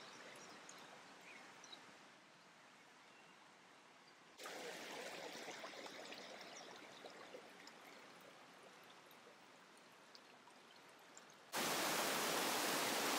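Small rocky river running over stones and little cascades: a steady rush of water that steps up in level about four seconds in and again near the end, where it is loudest.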